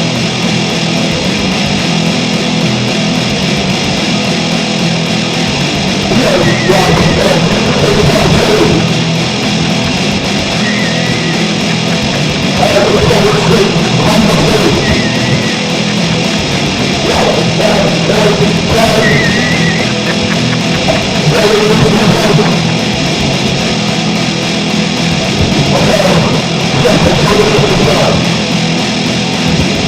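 Loud, noisy, distorted rock music with guitar.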